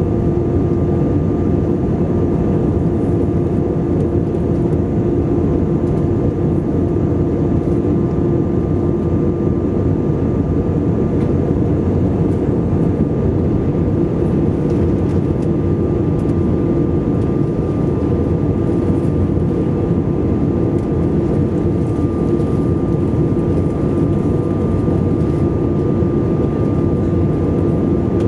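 Steady in-flight cabin noise of an Airbus A320 heard from a window seat over the wing: a constant rush of airflow and engine drone, with a steady low hum and a fainter high whine.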